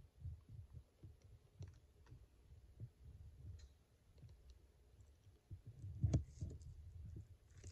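Faint low rumbling and soft irregular thumps on the microphone, with a few light scattered clicks and one sharper click about six seconds in.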